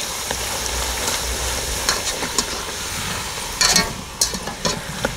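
Sopaipilla dough frying in hot oil in a metal pan, a steady sizzle. A few sharp clicks and scrapes come from the metal wire turning the dough against the pan, the loudest a little after three and a half seconds in.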